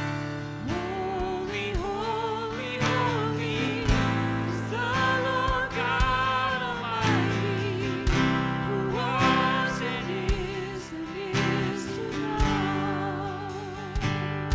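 Live worship song: a lead singer with a wavering vibrato over strummed acoustic guitar and a band with a steady beat.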